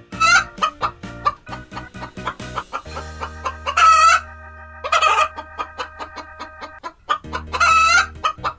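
Domestic chickens clucking in quick runs of short calls, with three louder, longer calls about four, five and eight seconds in.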